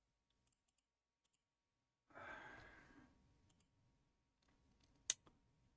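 Mostly near silence. About two seconds in, a person sighs, a breathy exhale that fades over about a second; near the end a single sharp click, the loudest sound, then a fainter second click.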